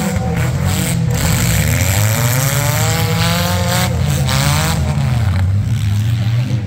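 Four-cylinder demolition derby cars' engines running and revving, their pitch rising and falling over a few seconds.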